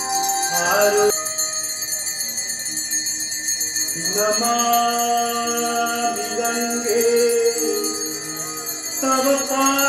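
Hindu devotional aarti music: a voice singing a hymn over instruments, with bells ringing along. The singing pauses about a second in and resumes about four seconds in.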